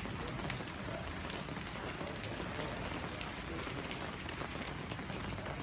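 Steady rain falling, mixed with the crackle of a small wood fire.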